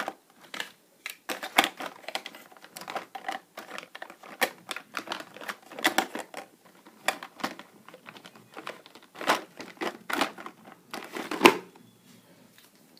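Eye pencils, mascara tubes and other makeup clicking and rattling against each other and the sides of a plastic storage drawer as a hand rummages through them: an irregular run of light clicks and knocks. A louder knock about eleven and a half seconds in, as the plastic drawer is pushed shut.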